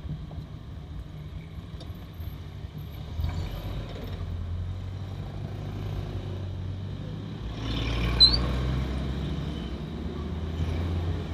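The engine of a 1980 Toyota Corolla DX running as the car drives, heard from inside the cabin: a steady low hum that swells about three seconds in and again near eight seconds. One short, high squeak sounds about eight seconds in.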